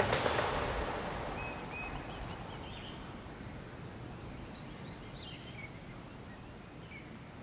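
The tail of a music track dies away in the first second, leaving quiet outdoor ambience: a soft steady hiss with a few short bird chirps scattered through it and a faint steady high-pitched tone.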